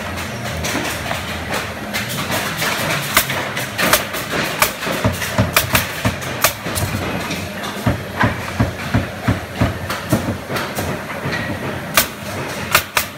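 Nail gun firing in quick irregular clusters of sharp cracks as pine slats are fastened into a small wooden crate, with wooden knocks of the slats being handled. A steady workshop din runs underneath.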